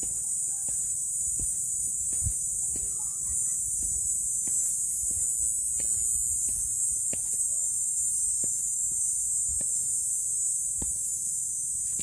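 Steady high-pitched drone of insects in the surrounding scrub, with footsteps landing on concrete steps at irregular intervals of about a second.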